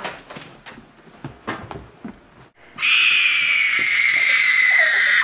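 A few quiet knocks and rustles, then about three seconds in a loud, shrill screech that holds for about two and a half seconds, its pitch sagging slightly, and cuts off suddenly.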